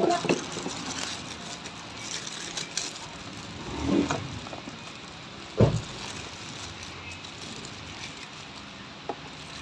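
Toyota Vios engine running with a steady mechanical noise from the water pump, whose bearing the mechanic calls rough, wobbly and noisy. Two dull thumps come about four and five and a half seconds in, with a few light clicks.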